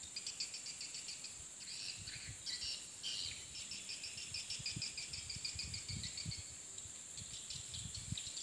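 Edible-nest swiftlet calls: rapid, high chirping and twittering, the lure call played at a swiftlet house to draw swiftlets in, with the birds circling it. A steady high hiss runs underneath.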